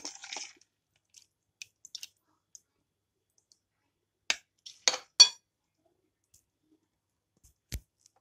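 A steel spoon clinking and scraping against bowls while scooping wet soaked lentils into a glass bowl: scattered light clinks, a louder group of three about halfway through, and a single knock near the end.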